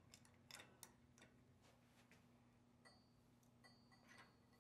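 Faint, irregular small metal clicks and ticks as stainless mount screws are threaded into the enclosure by hand and tightened with a ratchet wrench.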